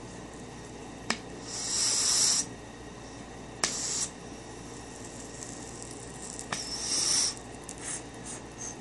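Torch lighter clicking three times, each click followed by a short hiss of the flame as it is held to a pipe's bowl, with a few small soft hisses near the end.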